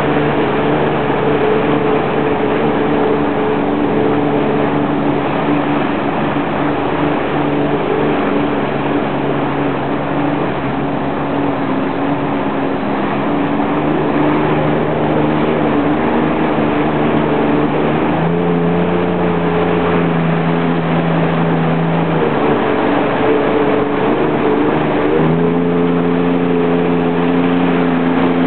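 Jet ski engine running under way, a steady engine note under heavy wind and water noise. The engine pitch steps up about two-thirds of the way through, drops back briefly, then rises again near the end as the throttle changes.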